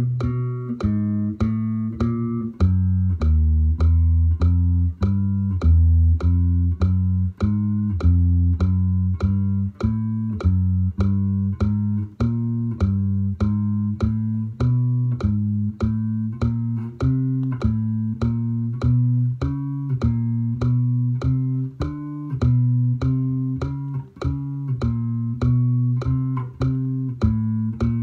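Electric bass played fingerstyle in a fretting-hand drill using the 4-1-2-3 fingering: single plucked notes at an even pace of about two a second, the pitch shifting from note to note.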